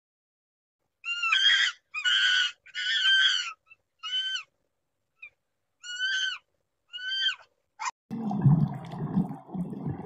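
Six short, high-pitched animal calls, each rising then levelling off, the first three longest and closest together. A low rumbling noise starts about eight seconds in.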